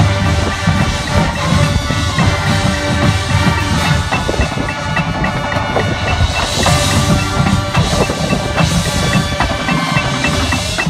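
Marching band playing its field show music, with drums and the pit's mallet percussion ringing out repeated short notes over the low sustained parts.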